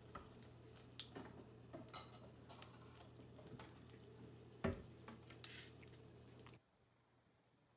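Whole spices frying in butter and oil in a steel pan: faint scattered crackles and pops over a low steady hum, with one louder knock about four and a half seconds in. The sound cuts off suddenly about a second before the end.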